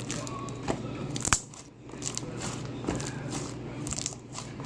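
Slime being patted and squished by hand, giving irregular sticky clicks and crackles.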